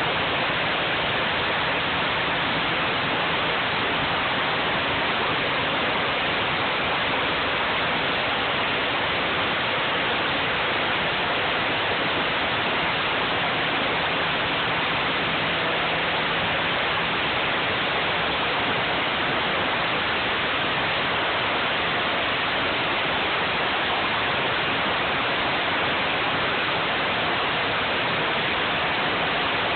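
Pressure washer jet spraying onto the ground, a loud, steady hiss of water with a faint steady hum beneath it.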